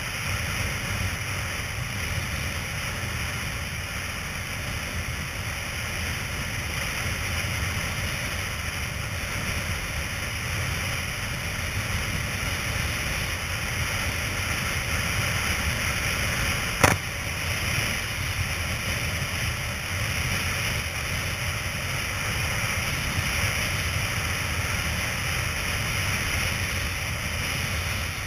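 Steady wind rush and buffeting on a kitesurfer's action camera at speed, with the hiss of water under the board, and one sharp knock just past halfway.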